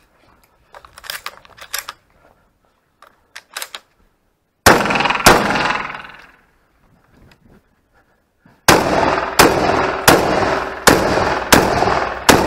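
Beretta shotgun fired rapidly: two shots about half a second apart, then after a pause a string of six shots roughly 0.7 s apart, each report ringing out in a short echoing tail. Before the shots there are light clicks and rustles of the shooter moving.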